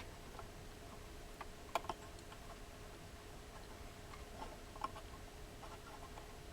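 Scattered light clicks and taps of tools and small parts being handled on a workbench, over a faint steady hum.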